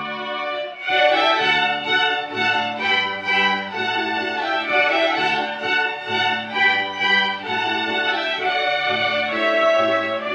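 Ensemble of young violinists playing an arrangement of a Ukrainian folk song, with accompaniment; the playing gets louder about a second in.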